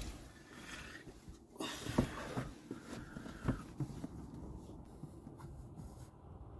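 Faint rustling and a few soft knocks: handling noise from a phone being moved about and fumbled close to the microphone inside a van's cabin.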